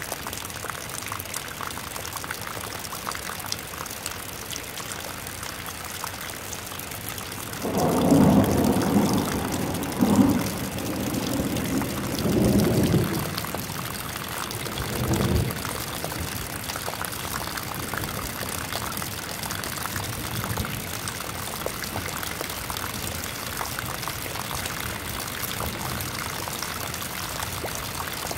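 Rainwater streaming down from above and splashing steadily into a muddy puddle, with rain pattering on the water. From about 8 to 16 seconds in, a louder low rumble rolls in several swells, then fades back under the splashing.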